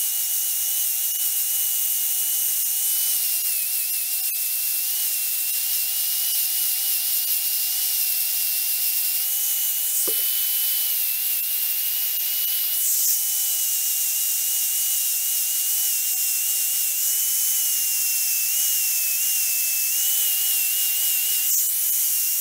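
Electric angle grinder with a 60-grit flap disc running steadily with a high whine while grinding down the cut edges of an aluminium K20 Type S oil pump housing. Its pitch sags slightly now and then as the disc bears on the metal.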